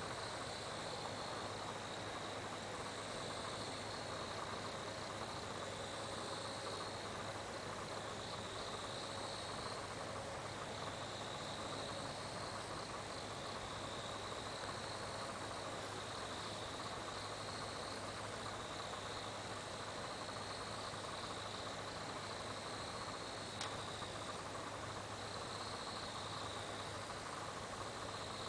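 Crickets trilling steadily, a continuous high chorus that swells and fades slowly every few seconds, over a faint even hiss and a low steady hum.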